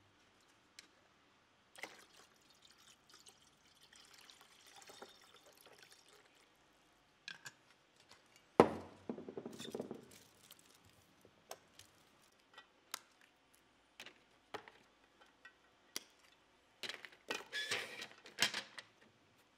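Hands handling a foil-wrapped glass vessel: aluminium foil crinkling with scattered clicks and knocks. There is one loud knock about eight and a half seconds in and a dense run of crinkling near the end.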